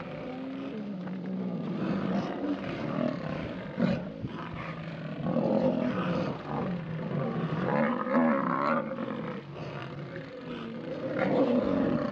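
Lions growling and snarling in repeated rising and falling bouts, loudest in the second half.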